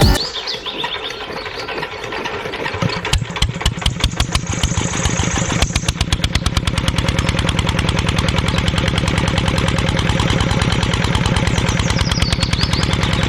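A small engine starts about three seconds in, its firing quickening over the next few seconds and then holding a steady fast run.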